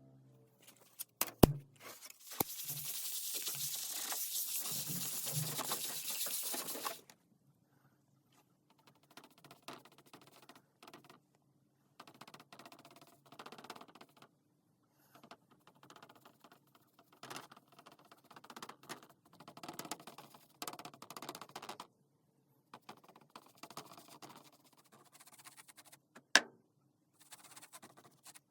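Small-scale handwork noises: a few sharp clicks, about four and a half seconds of steady hissing, then on-and-off light scratching and rubbing, with one sharp click near the end.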